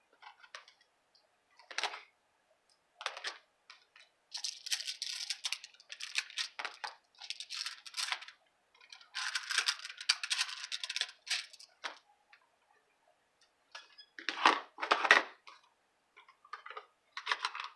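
Crafting supplies being handled on a tabletop: two spells of scratchy rustling, then a few louder knocks near the end as a clear acrylic stamp block is set down on the table.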